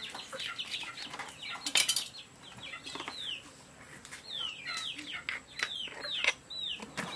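Chickens calling with many short, falling peeps, over the knocks and scrapes of a knife cleaning and cutting fish on a wooden block, with a sharper knock just before two seconds in.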